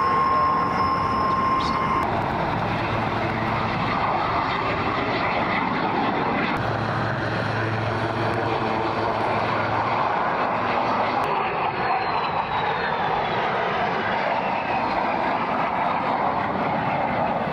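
Jet noise from a de Havilland Vampire FB.52, with its single Goblin turbojet, and a MiG-15UTI on takeoff and climb-out: a steady loud rushing roar. A high whine holds steady for the first couple of seconds, and in the second half a whine slowly falls in pitch as the jets move away.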